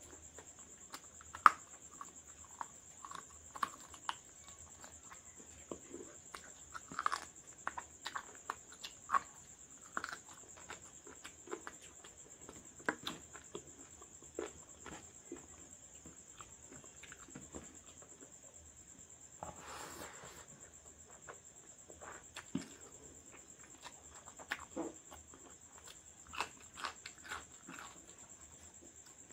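Close-up eating sounds of a person eating rice and curry by hand: scattered wet mouth clicks and smacks while chewing, and fingers squishing through rice. A short breathy rush comes about twenty seconds in, over a faint steady high whine.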